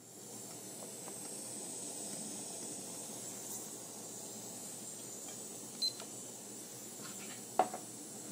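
Steady hiss of the small gas burner heating the lower globe of a siphon coffee maker, with two short knocks against the glass pot near the end, the second louder.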